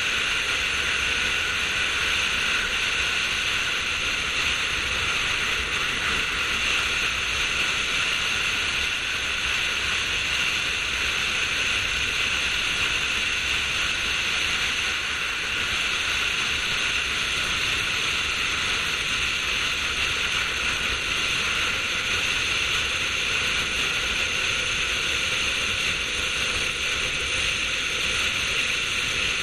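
Steady rush of wind and road noise on the microphone of a GoPro mounted outside a car driving at speed, with no change in level.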